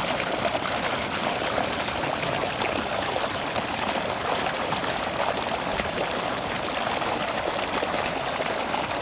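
A steady rush of running water, even and unbroken.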